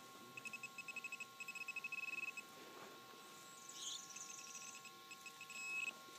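Metal detecting pinpointer probe beeping in short pulses that quicken until they run almost into one tone as it closes on the buried metal target, twice over. There is a brief rustle of soil between the two runs.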